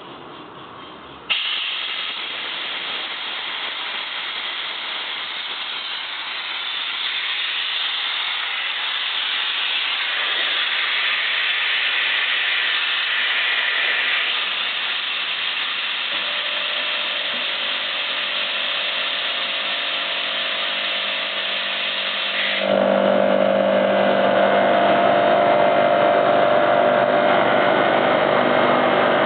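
Home-built air compressor made from two air-conditioner compressors, running. A steady rush of air starts suddenly about a second in, and near the end it gets louder as a machine hum with steady tones joins.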